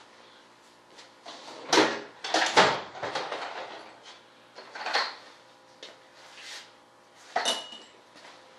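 Hard objects being handled and set down: a few scattered clunks and clatters, the loudest about two seconds in, with a short metallic clink near the end.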